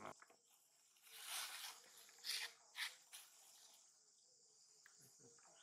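Insects droning steadily at a high pitch, with a few short, loud rustling rasps between about one and three seconds in.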